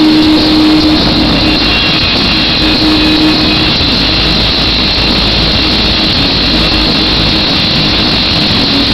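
Loud, overloaded live punk-rock concert sound in an arena: a steady roar of crowd and amplified band noise, with a held low note that fades after about a second.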